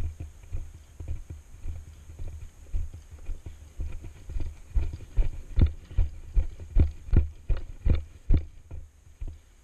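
Footsteps of a person moving quickly over cracked asphalt, heard as low thuds about two or three a second. They grow louder and more regular in the second half, then stop about a second before the end.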